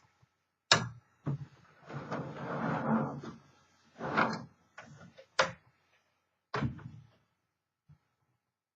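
A series of sharp knocks, with a longer sliding scrape about two to three seconds in: hard objects being moved and set down on a surface.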